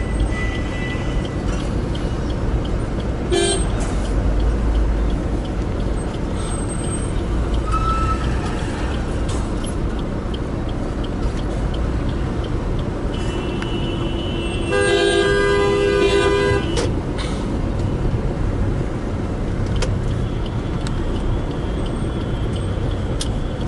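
Busy road traffic: a steady low noise of engines and tyres, with vehicle horns sounding, a short toot about three seconds in and a louder horn held for about two seconds roughly fifteen seconds in.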